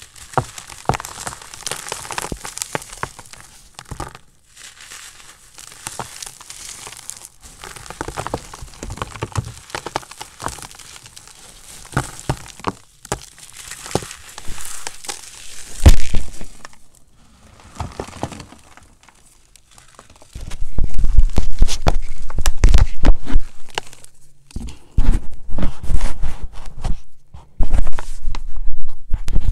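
Bare hands squeezing and crushing crumbled gym chalk: a dense, dry crunching and crackling of breaking chalk pieces and powder. About two-thirds of the way in, the sound turns much louder and deeper, with heavy thuds and rumbling pushes.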